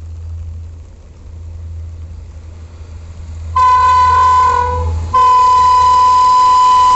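Horn of an approaching WAP-7 electric locomotive: a first blast starting about three and a half seconds in, then after a brief break a second, longer blast still sounding at the end. Before the horn, only a low steady rumble.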